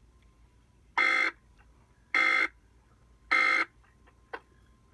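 Three short, identical bursts of EAS digital data buzz, about a second apart: the SAME end-of-message tones that close an Emergency Alert System broadcast.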